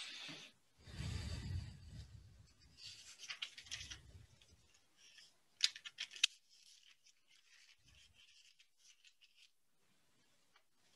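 Rustling and handling noise of a laptop or phone being moved close to its microphone, with low bumps in the first few seconds and two sharp clicks about six seconds in, then fainter rustling that dies away.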